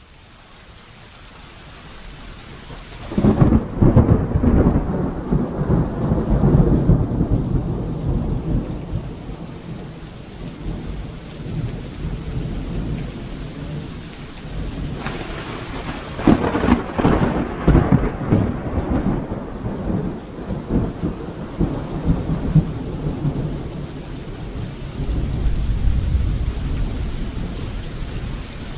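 Thunderstorm: steady rain fading up, with rolling thunder. Two heavy rumbles break in about 3 seconds and 16 seconds in, and a deeper rumble swells near the end.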